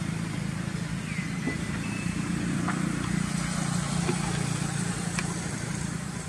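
Steady low engine hum, with a brief high squeak about a second in.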